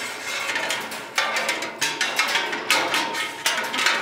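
Sheet-metal 12 oz can shim sliding down into a drink vending machine's vend cradle, scraping against the steel column with a string of sharp metal knocks at uneven intervals.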